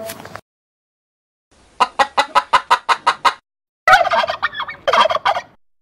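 Turkey gobbling twice. The first gobble starts about two seconds in as a quick run of pulses, about seven a second. A second, more tuneful gobble follows about four seconds in.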